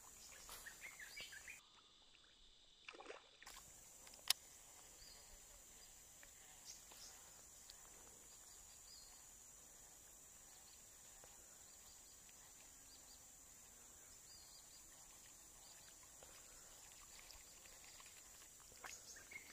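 Near silence: faint outdoor background with a steady faint high hiss and a single sharp click about four seconds in.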